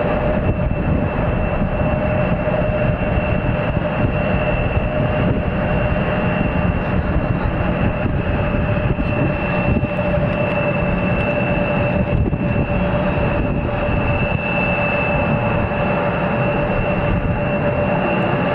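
Jet airliner's turbofan engines running steadily, a constant high whine over a dense rumble.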